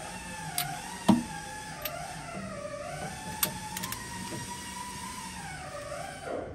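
Click-type torque wrench tightening the cylinder head bolts on a Detroit Diesel 6-71, giving several sharp clicks, the loudest about a second in. Under it runs a continuous, wavering pitched tone.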